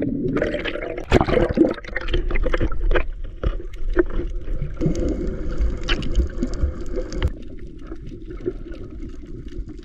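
Sea water heard underwater from a snorkeller's camera: bubbling and sharp knocks and crackles in the first three seconds after going under, then a muffled, steady underwater rumble with scattered clicks.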